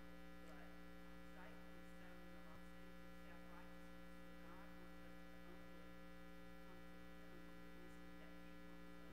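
Steady electrical mains hum on the sound system, with a person's voice faint and distant, speaking off-microphone.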